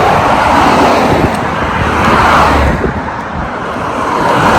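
Road traffic on a carriageway close by, with the tyre and engine noise of passing cars swelling and fading. It dips a little past the middle and rises again near the end as another vehicle comes by.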